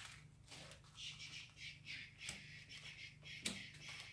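Faint crinkling of small plastic zip-lock bags of diamond-painting drills being handled and set down, with a few soft taps.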